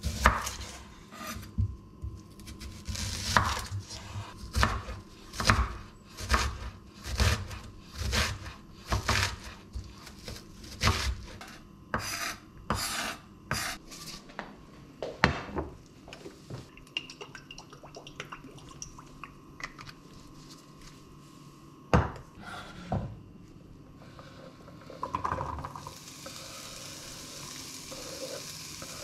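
Chef's knife chopping an onion on a bamboo cutting board: a run of sharp knocks, about one or two a second, for roughly the first half. Then come a few single loud clunks as a frying pan is handled and set on the hob. Near the end there is a faint sizzle as the diced onion is scraped from the board into the hot pan.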